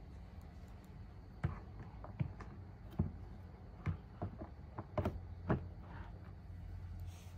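Hollow plastic knocks and clicks as a humidifier's water tank is handled and seated onto its base, about eight separate knocks over a few seconds.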